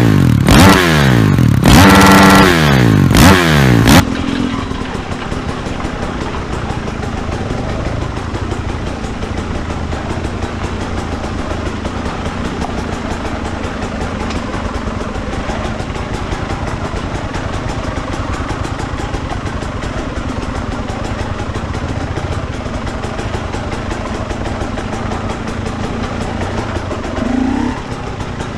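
A loud intro sting of sweeping electronic sounds for about four seconds. Then an enduro dirt bike is heard from the rider's helmet camera, its engine running steadily as it climbs a rocky forest gully, with wind and stones clattering.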